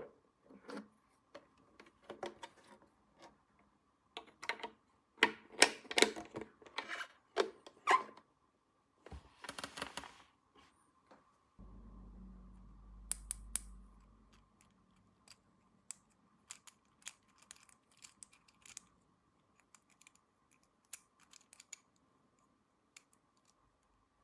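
Small plastic toy pieces being handled, with quick clicks, taps and rustles, thickest in the first half. A low steady hum runs for about three seconds near the middle.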